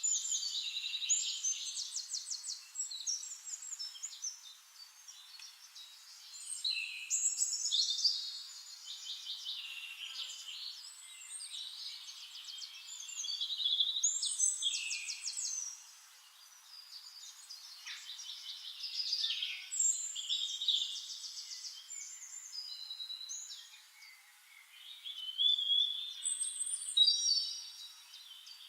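Several songbirds singing at once: overlapping chirps, short glides and fast trills, coming in phrases of a few seconds that rise and fall in loudness.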